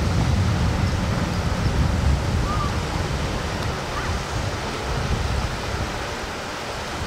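Wind rumbling on the microphone over the wash of the sea.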